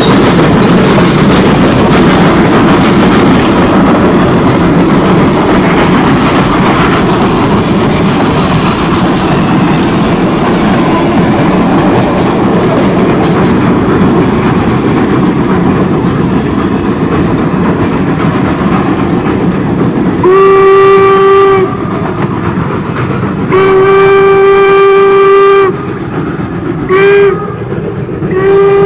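Steam train's passenger cars rolling past over the rails with a steady clatter. Then the locomotive's steam whistle blows the grade-crossing signal: two long blasts, a short one, and the start of a final long one.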